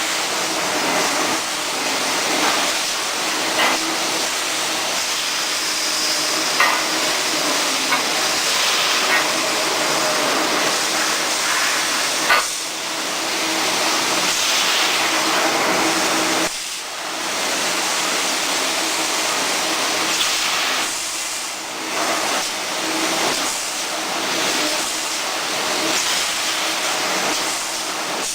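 Automatic wire mesh welding machine running: a loud, steady hissing din with a few sharp clacks and one brief lull a little past halfway.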